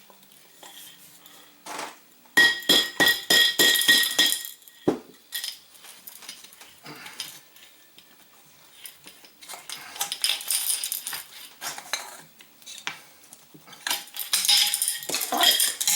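Screwdriver being banged into and worked around the hole in an empty spray paint can: a quick run of sharp metal strikes with the can ringing about two seconds in, then lighter clinks and scraping of metal on metal, picking up again near the end.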